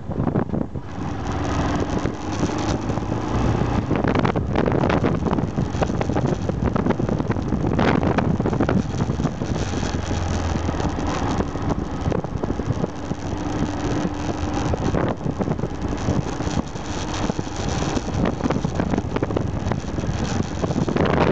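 Aprilia Pegaso 650 Strada's single-cylinder engine running as the motorcycle is ridden, with wind rushing and buffeting over the microphone, surging now and then.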